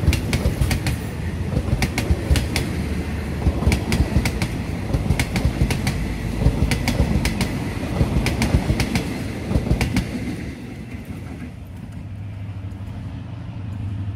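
State Railway of Thailand express train's passenger coaches rolling past close by: a steady rumble of wheels on rails with an irregular run of sharp clacks over the rail joints. About ten seconds in the last coach has gone by, the clacks stop and only a quieter low rumble remains.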